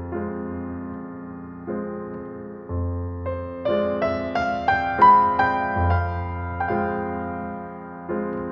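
Slow, soft piano music: low bass notes struck every couple of seconds under sustained chords, with a melody that climbs note by note in the middle and peaks about five seconds in.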